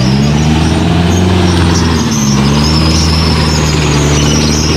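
Off-road 4x4 engine revving under load as it climbs a slippery mud track, its pitch rising and falling slowly, with a steady high-pitched whine over it.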